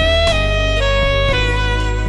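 P.Mauriat PMXA-201 alto saxophone playing a slow melody in a few held notes, over a backing track with a steady bass line.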